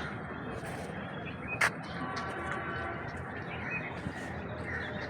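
Outdoor ambience of distant voices and birds calling over a steady background hum, with one sharp knock about one and a half seconds in.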